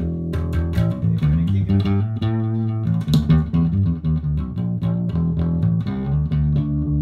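1959 Fender Precision Bass played through a bass amp with its tone control all the way up: a continuous bass line of plucked notes.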